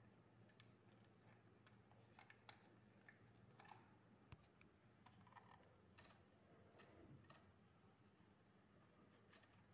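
Near silence, with faint irregular clicks and taps over a low steady hum.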